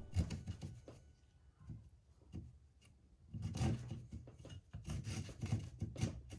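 Saw cutting through wood in rasping strokes: a few at first, then after a short pause a steady run of about two strokes a second.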